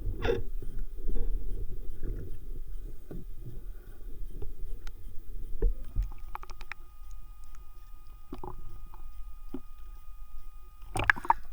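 Muffled underwater rumble of moving water with scattered faint clicks and knocks, picked up by a camera underwater, and a louder brief gurgling splash near the end.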